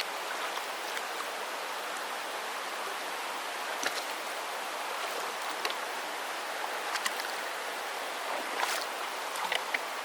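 Creek water rushing steadily, with short sharp splashes every second or two as someone wades across the stream.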